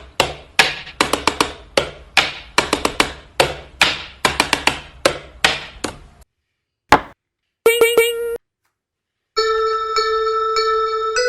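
A quick, irregular run of sharp knocks or taps for about six seconds, then a single click and a brief chime. A bell-like melody of sustained notes starts shortly before the end.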